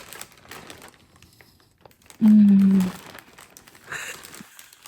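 Plastic packaging crinkling and rustling as food is unwrapped from a parcel, with one short, loud hummed voice sound a little over two seconds in.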